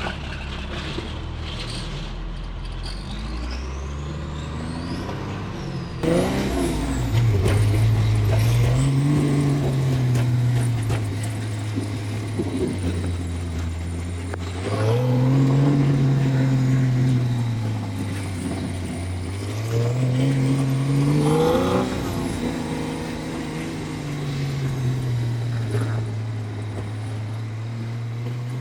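Diesel engine of a 6x6 truck running under load while driving, its pitch rising and falling again and again as it accelerates and eases off. It gets suddenly louder about six seconds in.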